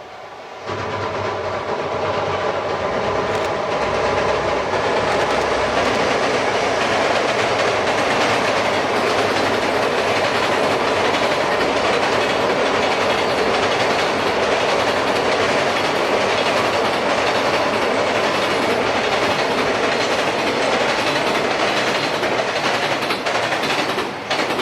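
Freight train crossing a steel railway bridge: a loud, steady rumble of wheels on rails and girders with wheel clatter. It starts suddenly about a second in, holds for over twenty seconds, and begins to fade near the end.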